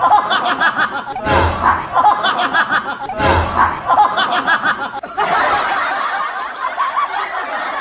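Laughter, the same burst repeating about every two seconds, giving way to a denser stretch of laughter about five seconds in.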